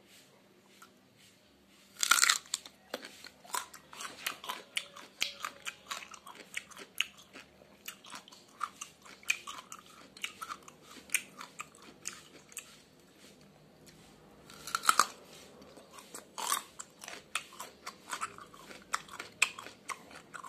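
A person biting into and chewing a raw young papaya stem, crisp crunching with many sharp crackles. Loud bites come about two seconds in and again around fifteen seconds in, with steady crunchy chewing between.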